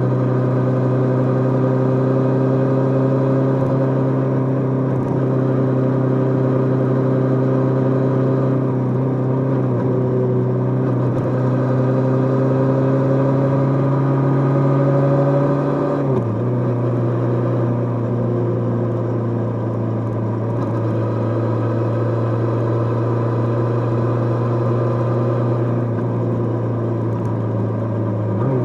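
Kawasaki GPZ550's air-cooled inline-four engine running steadily on the move, its revs climbing slowly, then dropping suddenly at an upshift about sixteen seconds in and again near the end.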